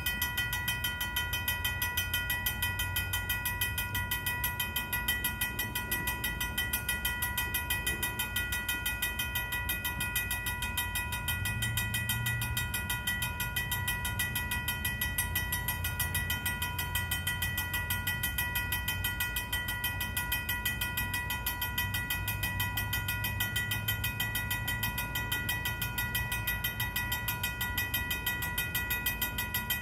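Vintage mechanical railroad crossing bell ringing fast and steadily, its clapper striking at a quick, even pace, the sign that the crossing signals are active and the crossing is occupied by a train. A low rumble runs underneath.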